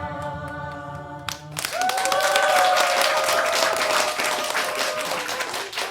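Live music ends on a held chord about a second and a half in, and an audience breaks into applause with cheering voices.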